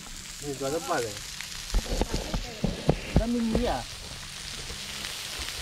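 Food sizzling on a barbecue grill, a steady hiss, with a few knocks and thumps around the middle.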